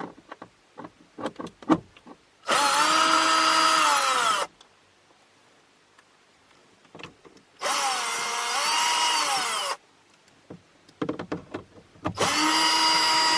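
Power drill with a T20 Torx bit backing out trim screws, in three runs of about two seconds each. The motor whine speeds up and then winds down on each run, with small clicks of handling in between.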